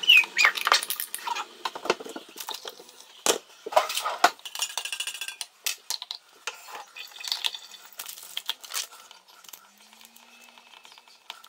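A spoon and lid clinking and knocking against a stainless steel travel mug: a series of separate sharp clinks, busiest in the first half and sparser towards the end.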